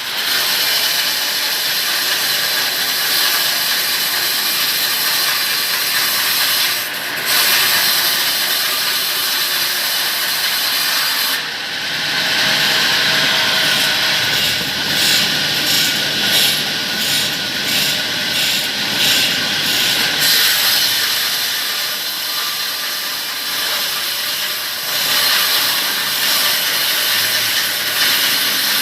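Sawmill saw cutting lengthwise through a palmyra palm trunk, a steady, loud sawing noise of blade in wood. For several seconds in the middle it pulses in a regular rhythm.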